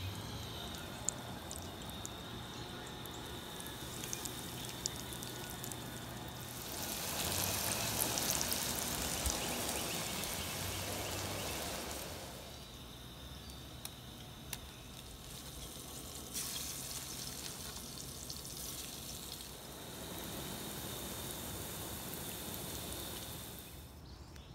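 Coated bass fillets frying in hot oil in a cast iron skillet: a steady sizzling hiss with a few small pops, louder for several seconds in the middle.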